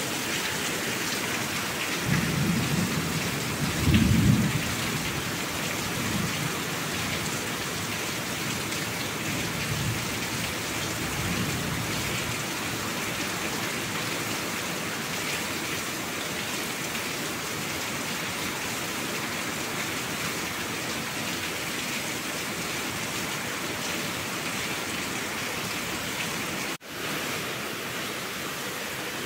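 Steady rain with low rumbles of thunder. The loudest rumble comes about four seconds in, with several fainter ones up to about twelve seconds. The sound drops out for an instant near the end.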